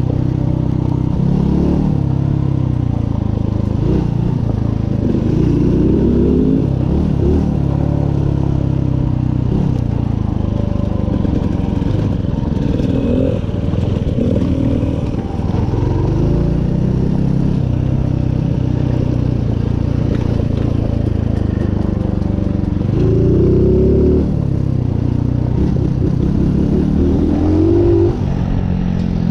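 Mutt motorcycle's single-cylinder four-stroke engine ridden on a dirt trail, its revs rising and falling repeatedly as the throttle opens and closes, with rattling from the bike over the rough ground.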